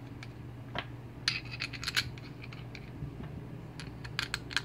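Small metallic clicks and clinks of the bolts and the two halves of a Harley-Davidson Road Glide brake caliper being handled and fitted together by hand. The clicks come in scattered clusters, about a second in, around two seconds, and again near the end.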